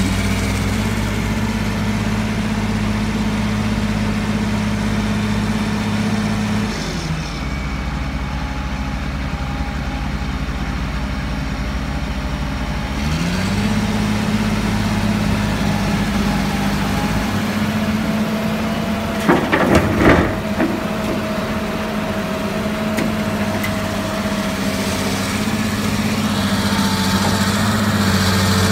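Heavy diesel engines of a farm tractor and a tracked excavator idling with a steady low hum. The engine note drops about seven seconds in and climbs back about six seconds later. A quick cluster of metallic knocks comes about twenty seconds in.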